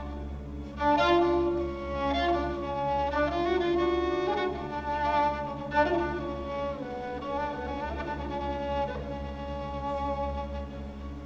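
Bowed string instruments playing a slow, ornamented melody over a sustained low drone.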